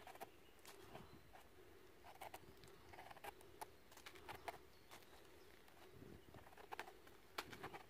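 Faint scraping and irregular sharp ticks of a small knife cleaning soil off the stem base of a freshly picked bolete mushroom, with a cluster of louder ticks near the end.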